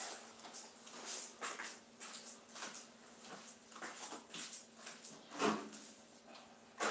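Faint, scattered knocks and footfalls of a person moving about a room, with a louder knock about five and a half seconds in, over a faint steady hum.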